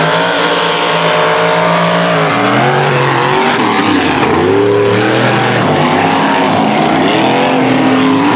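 Race engine of a mud-racing truck revving hard, its pitch climbing and dropping several times as the throttle is worked through the mud pit.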